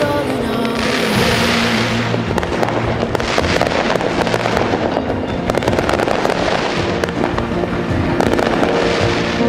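Fireworks going off in quick succession: a dense crackling of many sharp pops, with steady music playing underneath.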